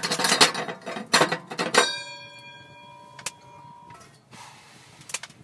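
Metal cooking lid of a wood stove being lifted off with a lid-lifter hook, scraping and clanking against the stovetop, then set down with a sharp clank that rings on for about two seconds.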